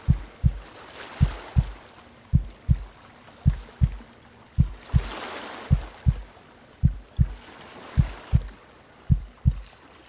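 Deep, slow heartbeat sound effect: a lub-dub pair of low thumps a little over once a second. Under it is the soft wash of calm ocean waves, swelling and fading every few seconds.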